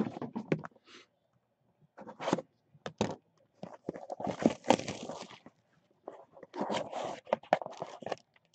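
Hands handling and opening a cardboard trading-card box: scraping, crinkling and tearing of cardboard and wrapper in several short bouts, with small clicks and knocks.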